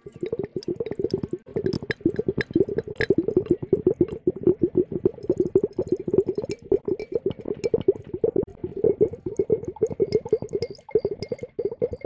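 Close-miked ASMR sound of a translucent, bulb-shaped object handled right at the microphone: a dense, rapid run of wet-sounding crackles and squishes, many a second, without a break.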